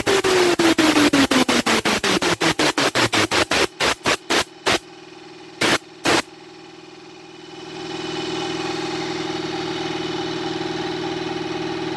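Rapid, loud clicking from a spinning 3D-printed wheel with a metal rod held against it, about five clicks a second, spacing out as the wheel slows, over a falling whine of it spinning down; two last clicks about six seconds in. From about eight seconds a steady hum with a held tone sets in.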